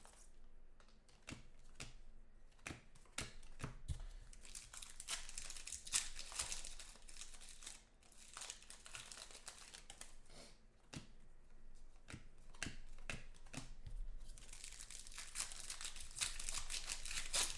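Foil trading-card pack wrappers being torn open and crinkled by hand: irregular crackles and rips throughout, busiest near the end.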